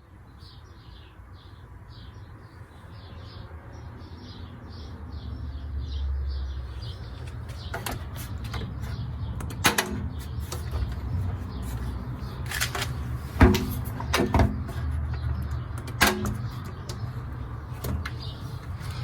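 Miele Meteor 1000 Novotronic washing machine running: a low rumble that grows louder over the first six seconds, a rapid string of short high squeaks, and a handful of sharp knocks.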